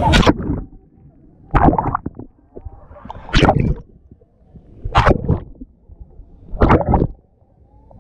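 Water splashing and gurgling over an action camera held at the surface of a water park's lazy river, in regular bursts about every one and a half to two seconds with quieter gaps between.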